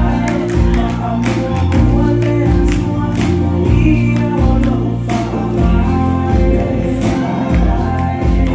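Gospel music with a choir singing over a steady bass line and a beat, with tambourine.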